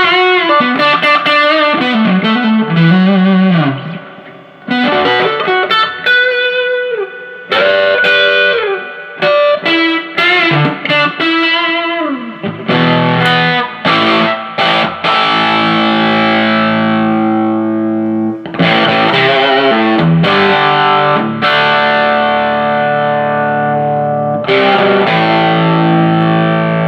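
Electric guitar played through a Fender Hot Rod Deluxe tube amp with distortion: single-note lead lines with short pauses, then held, ringing chords from about halfway. The amp is working again after a repair that replaced its pair of 6L6GC power tubes.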